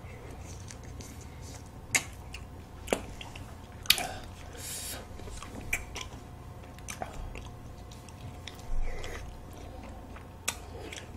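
Close-miked eating of frozen melon ice cream bars: biting and chewing, with a handful of sharp clicks and smacks scattered through.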